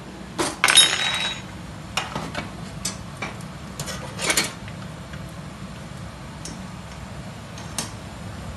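Metal kitchen tongs clattering and clinking against a metal roasting tin on a gas hob while roast potatoes are picked out. The loudest is a ringing metal clatter about a second in, followed by scattered knocks that thin out toward the end.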